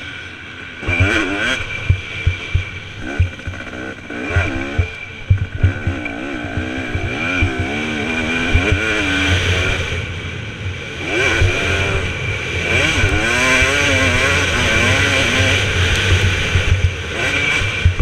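A 2017 KTM 250 SX two-stroke motocross bike's engine revving up and falling back over and over while being ridden hard. Sharp knocks and clatter come through from the bike over the rough track.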